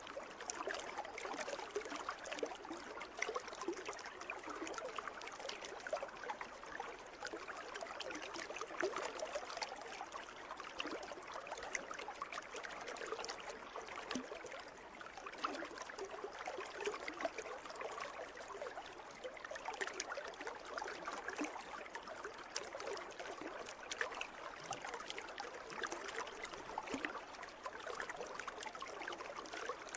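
Water in a pool trickling and splashing steadily, a continuous patter of many small splashes.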